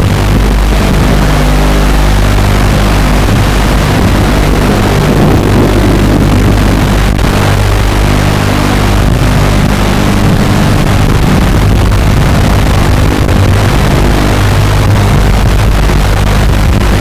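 Mini FPV quadcopter's brushless motors (Sunnysky 1306) and props whining loudly and steadily, the pitch shifting up and down with the throttle, heard through the video link's distorted on-board audio.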